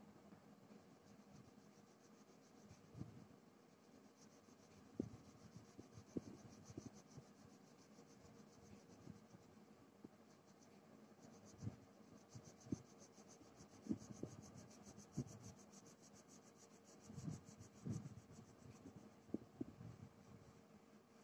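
Faint scratching of a crayon colouring on paper in short, uneven strokes, with a few soft taps.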